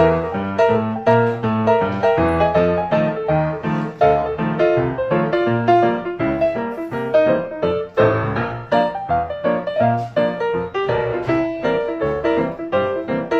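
Background piano music: a steady, even run of struck notes.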